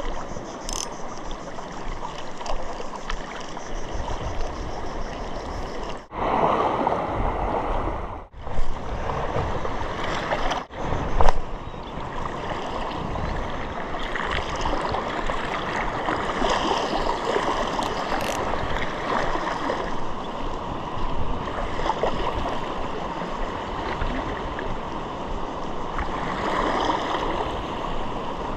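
Small waves lapping and washing onto a sandy shore in a steady wash of water noise, broken by three brief dropouts in the first half.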